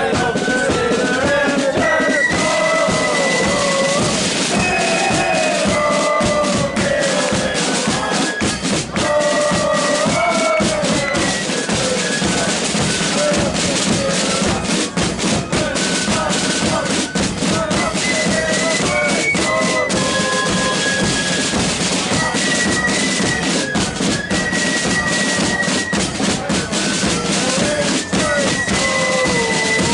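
Marching flute band playing: flutes carry a melody over a steady beat of snare and bass drums.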